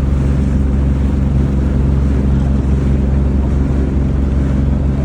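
A boat's engine running steadily, a deep even drone that does not change.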